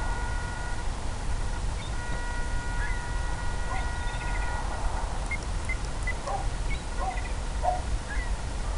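Wind buffeting the microphone as a steady low rumble, under a steady high electronic whine at a few pitches that cuts out for about a second, about a second in, then returns. Scattered short chirps come through now and then.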